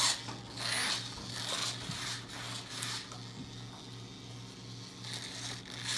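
Small servos buzzing in short spurts as the RC airplane's SAFE stabilisation moves its control surfaces, over a low steady hum.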